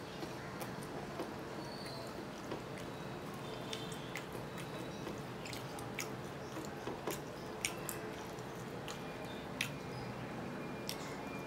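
A person chewing and smacking while eating rice and fried mutton by hand, with short scattered clicks of mouth and fingers and two sharper clicks in the second half.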